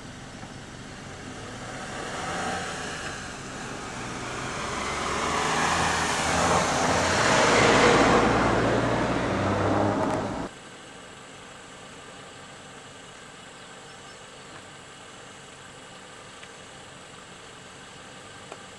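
A motor vehicle's engine and tyre noise grows steadily louder over several seconds, then cuts off abruptly about ten seconds in, leaving only a faint steady hiss.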